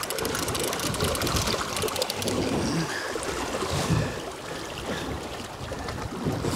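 Choppy sea slapping and sloshing against a small boat's hull, with wind gusting over it.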